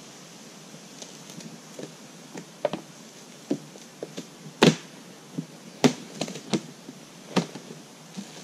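Irregular clicks and knocks of gear being handled and shifted on a kayak, loudest a little before the middle and again near six and seven and a half seconds in.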